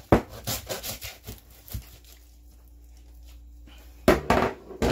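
A hand meat saw rasping through a bear carcass's ribs and backbone in several quick strokes over the first two seconds. Near the end there is a louder scrape and thump as the cut section is handled.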